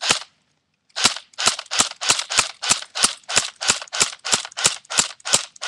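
Airsoft AK-47 replica firing: one shot, then after about a second a steady run of about fifteen sharp shots, roughly three a second.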